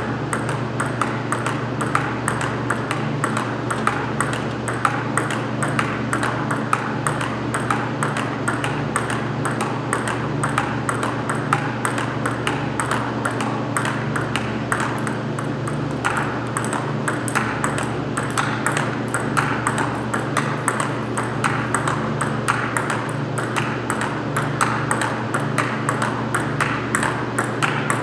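Table tennis ball clicking back and forth off bats and table in a steady rally, several sharp hits a second, over a steady low hum.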